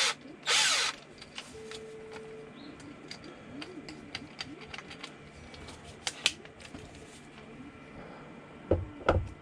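Handling of tools and camper hardware: scattered light clicks and knocks, with one short, loud burst of noise about half a second in and a few sharper knocks near the end.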